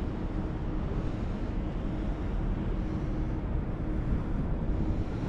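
Steady wind rumble on the microphone over harbour ambience, with a faint low engine hum from a passing harbour ferry.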